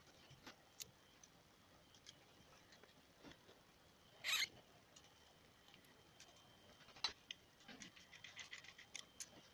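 Faint metallic clicks and ticks of a hex key working the cap screws out of an impact tool's front housing. There is one louder short scrape about four seconds in and a quick run of small ticks near the end.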